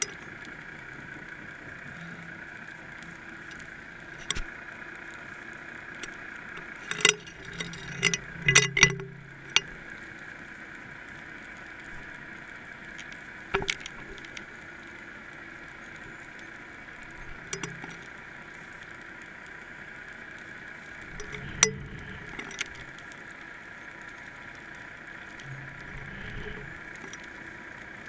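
Underwater sound picked up through a GoPro's waterproof housing hanging on a fishing line: a steady hum with scattered sharp knocks and clicks, a quick cluster of them about seven to nine seconds in and single ones now and then after.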